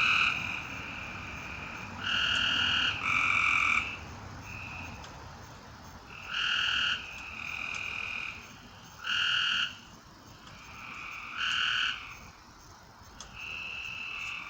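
Frogs calling: loud, short calls every two to three seconds, with softer, longer calls from other frogs in between.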